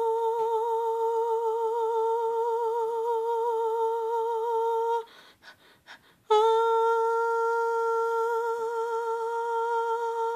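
A woman humming two long, steady held notes with a slight wobble in pitch. There is a breath-length break a little after five seconds in.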